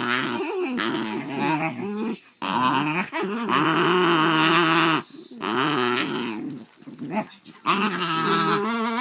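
Two Basenjis growling at each other in long, wavering, pitched runs, a tense warning standoff over a toy, with brief breaks about two, five and seven seconds in.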